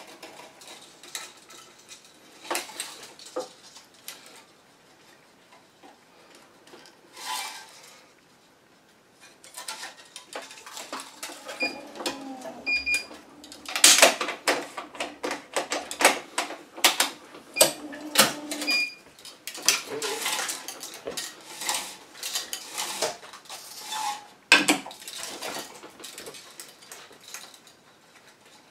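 Tennis racket being strung on a stringing machine: irregular clicks and metallic clatter of the string clamps and tools, and the string being drawn through the frame. A low hum and a few short high beeps sound near the middle.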